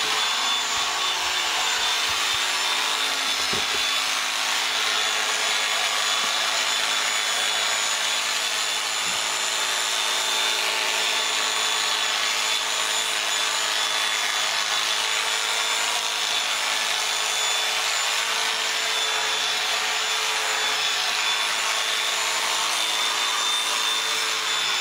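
Electric sheep-shearing clippers running steadily as they cut through the fleece, a constant high whine over a dense buzz.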